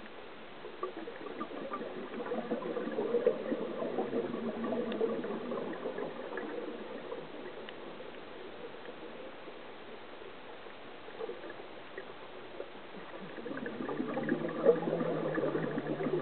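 Scuba diver's exhaled bubbles gurgling past the camera underwater, in two bubbly bursts: one starting about a second in and lasting several seconds, another starting near the end. Between them is a quieter steady underwater hiss.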